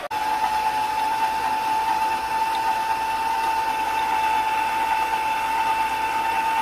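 Electric kitchen mixer running at a steady speed with a steady motor whine, beating cream cheese to soften it.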